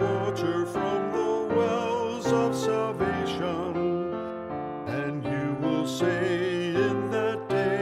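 Music: piano accompaniment under a slow melody whose held notes waver with vibrato.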